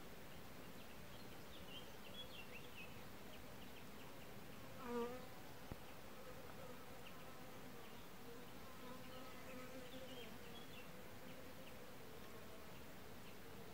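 A flying insect buzzing around the microphone, loudest as it passes close about five seconds in, followed by a single short click. Faint, short high chirps from birds come and go.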